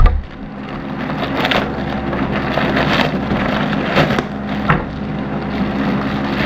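Cardboard shipping package being torn open by hand: crackling, ripping cardboard and tape with scattered sharp snaps, after a sharp knock at the start, over a steady low hum.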